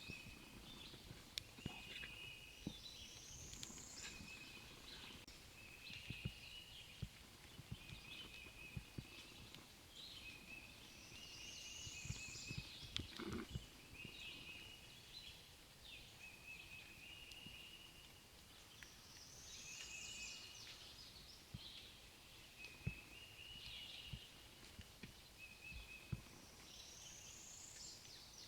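Faint songbirds singing in the open, one bird repeating a phrase about every eight seconds that sweeps up high, with shorter chirping notes between. Scattered faint low knocks run under it.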